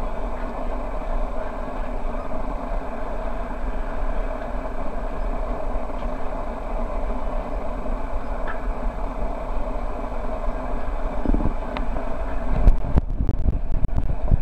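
Steady background rumble, with a few low knocks and bumps near the end.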